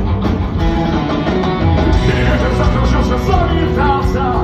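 Rock band playing live, the instrumental introduction of a song with guitars, bass and drums, steady and loud, before the vocals come in.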